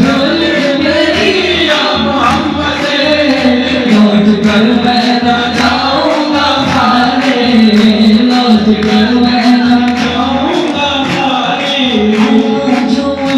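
Male voices singing an Islamic gojol (devotional song) into microphones, with steady beats on a hand-held frame drum.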